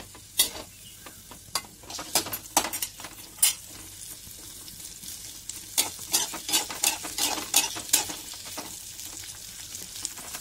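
Chunks of onion sizzling in shallow oil in a kadhai, with a steady hiss, while they are stirred: irregular sharp knocks and scrapes of the stirring utensil against the pan, most frequent in the second half. The onions are being fried only lightly, toward golden brown.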